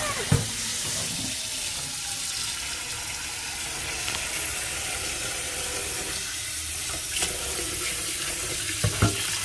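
Kitchen tap running into a burnt stainless-steel frying pan in a steel sink, the water splashing steadily as the pan is rinsed. There are a few light knocks near the start and toward the end.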